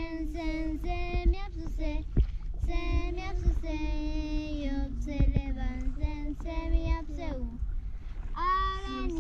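Two young girls singing a children's song together, unaccompanied, in long held notes.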